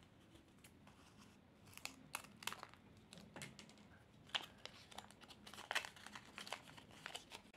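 Paper and clear plastic tape crinkling and crackling under the hands in irregular bursts, starting about two seconds in.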